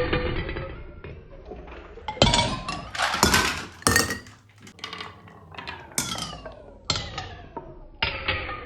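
Marbles running through a toy marble run, knocking against the track pieces at an uneven pace, each hit ringing on briefly with a pitched tone.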